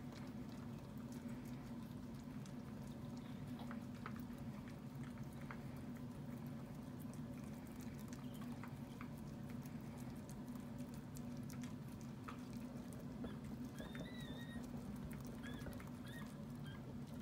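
Faint high-pitched squeaks of newborn puppies, a few short ones near the end, among small scattered clicks and rustling over a steady low hum.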